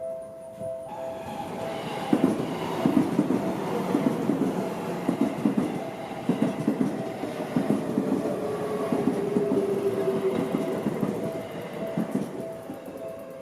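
Seibu Ikebukuro Line train passing over a level crossing, its wheels clattering over the rail joints in repeated groups from about two seconds in until near the end. The crossing's warning bell keeps ringing in two alternating tones throughout.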